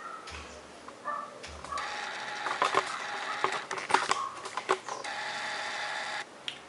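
Display adhesive tape of a 27-inch 2013 iMac crackling and tearing as the glued glass panel is pulled away from the aluminium case. After a couple of soft handling thuds, the crackle starts about two seconds in, is peppered with sharp clicks, and cuts off a little before the end.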